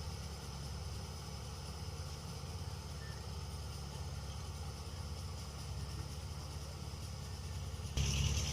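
Diesel engine of a Kubota DC105X combine harvester running steadily. It gets suddenly louder about eight seconds in, as if throttled up or a drive engaged. The owner reports the machine still runs smoothly at over 1600 hours, its injection pump included.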